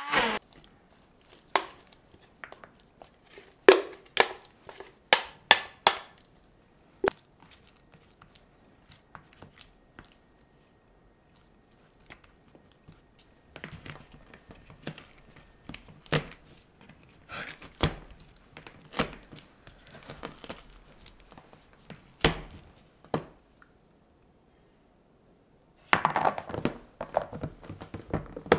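Scattered clicks, knocks and light rustling of plastic kitchen containers being handled: a plastic ice-cube tray of minced garlic is pressed into its case and a lid is fitted onto it. There are quiet stretches between the bursts of handling.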